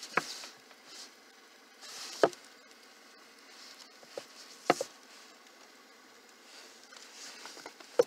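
Paperbacks being handled on a small wooden book shelf: three sharp knocks a couple of seconds apart, with light rustling between them.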